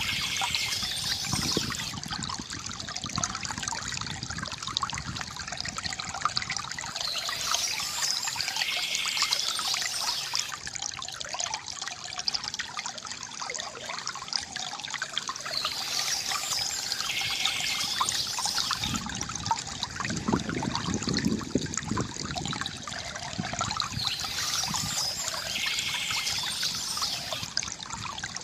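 River water trickling and gurgling steadily, with birds chirping; a high chirping phrase recurs about every eight seconds.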